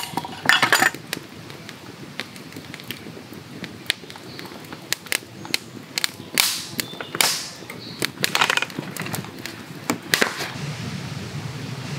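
Wood fire crackling and popping irregularly in an open fire basket, with a few louder scuffs and knocks among the pops.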